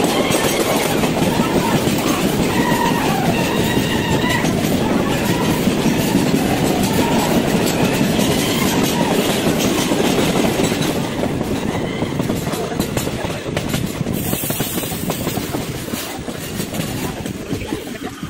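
Passenger train running, heard from an open coach doorway: a loud rumble and rattle of wheels on the track, echoing inside a tunnel, with faint high squealing tones over the first several seconds. The noise drops about eleven seconds in as the train leaves the tunnel.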